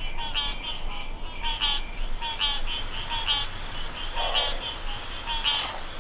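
Repeated short, pulsed animal-like calls, about two a second, in a steady chorus, with a brief breathier sound about four seconds in and again near the end.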